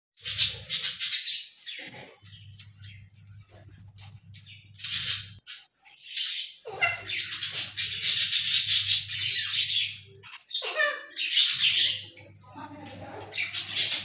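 Budgerigars chattering and chirping in a cage, in repeated bursts of a second or two of busy, high-pitched twittering.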